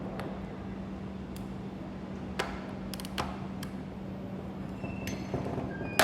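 Scattered light metallic clicks and clinks of hand tools and injector parts being handled while a common rail diesel injector is worked on, over a steady low hum.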